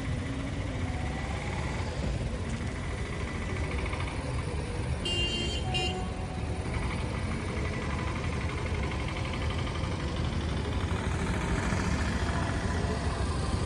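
Steady road traffic noise, with one short horn toot about five seconds in.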